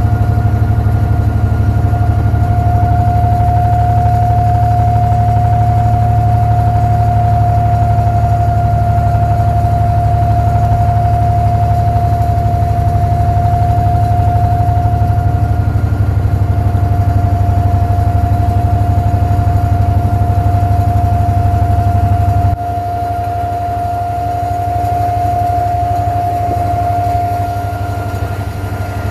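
The inboard diesel engine of a wooden abra water taxi running steadily underway, a deep rumble with a steady whine above it. About 22 seconds in, the low rumble drops suddenly and the engine runs on more quietly.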